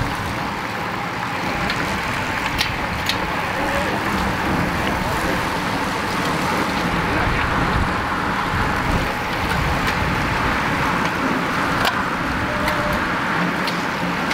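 A bunch of road racing bikes riding past close by: a steady mix of tyre, chain and wind noise with motor vehicle engines in it, and a few sharp clicks.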